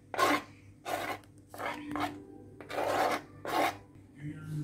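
Knife blade scraping across a cutting board, pushing diced tomatoes into a dish: a series of about six short, irregular scrapes.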